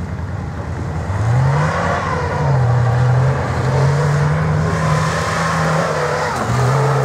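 Off-road 4x4 vehicle engine revving. The revs climb about a second in, then hold high with a few dips and rises.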